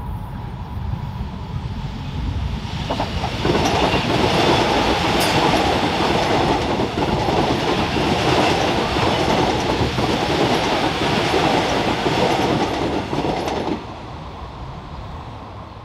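A Korail Line 3 electric commuter train passes along the above-ground track, its wheels clattering over the rails. It comes up loud about three seconds in and drops away suddenly near the end as the last car goes by.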